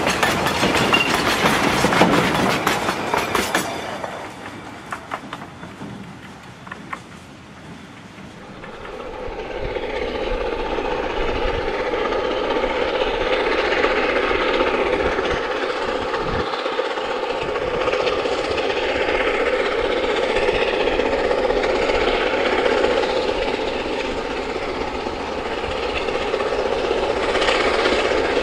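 Steel coal wagons of a narrow-gauge railway rolling past close by, wheels clicking over the rail joints; the sound fades out about four seconds in. From about nine seconds in comes the steady running sound of a C2 narrow-gauge steam locomotive hauling the coal train at a distance.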